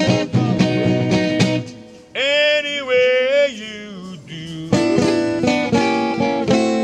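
Live acoustic music on plucked strings, led by guitar, picking a brisk tune; about two seconds in the picking stops for one long held note that bends and wavers in pitch, and the picking comes back in about five seconds in.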